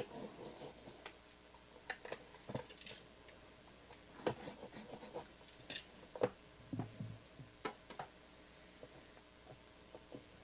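Trading card box and its packaging being handled, with scattered light clicks, taps and rustles and one duller knock about seven seconds in.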